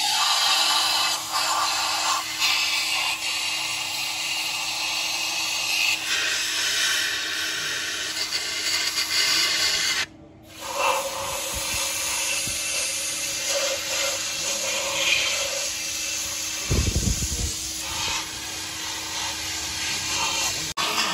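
Compressed-air spray gun hissing steadily as it blasts cleaning fluid over a cylinder head, with the spray stopping for about half a second roughly ten seconds in. A short low thump comes near the end.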